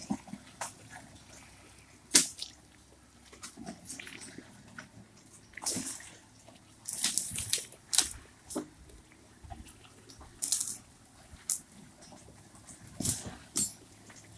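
Logs being winched across the forest floor by a tractor skidding winch, with irregular sharp cracks, snaps and scrapes of wood and branches and a faint low tractor engine hum underneath.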